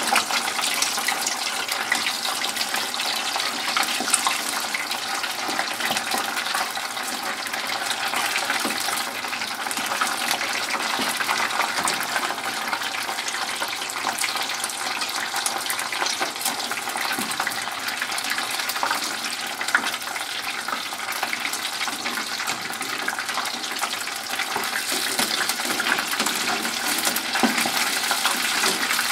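Breaded oysters deep-frying in lard: a steady, dense sizzle of bubbling fat with fine crackling.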